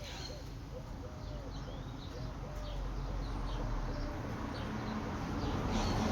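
A bird's series of short, low cooing notes, about two a second, fading out after about four seconds, with thin high chirps of small birds over it.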